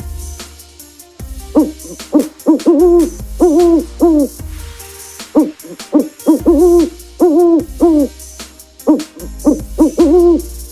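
Owl hooting: quick runs of several hoots, each slightly bending in pitch, repeated with short pauses between runs, over a low steady hum.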